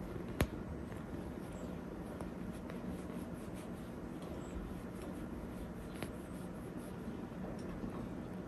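Soft scratching and rustling of a kitten clawing and biting a plush toy, with one sharp click about half a second in and a few fainter clicks later, over a low steady room hum.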